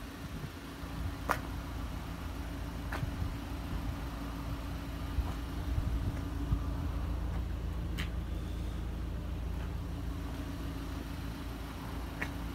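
Ford Transit's 2.2 TDCi four-cylinder diesel engine idling steadily, with a few faint clicks over it.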